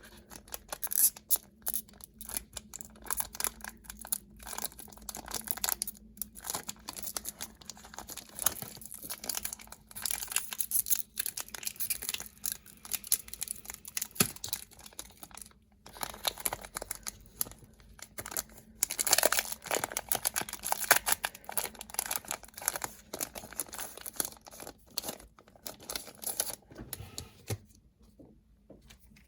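Foil trading card booster pack being torn open and crinkled, with repeated ripping and crackling of the wrapper and the cards being handled.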